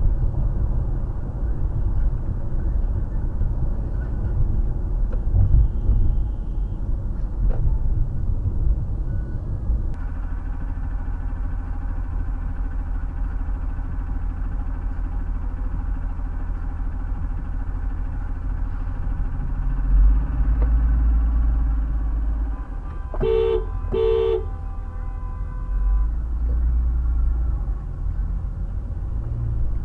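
Steady road and engine rumble of a moving car, with two short car-horn honks in quick succession about 23 seconds in.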